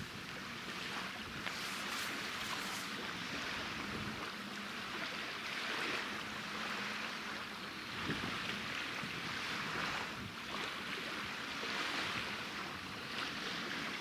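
Wind and a choppy sea: a steady rushing noise that swells and eases every few seconds, with a faint low steady hum in the first half.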